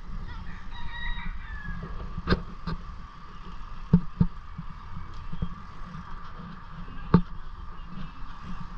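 Outdoor ambience: a steady low rumble with a few sharp knocks, and a short pitched call about a second in.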